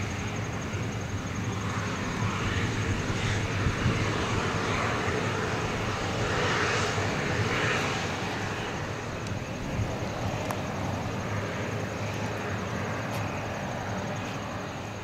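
Bombardier CS100 jet taxiing, its Pratt & Whitney PW1500G geared turbofans at low taxi power giving a quiet, even jet hiss that swells a little midway. Crickets keep up a steady high-pitched trill alongside it.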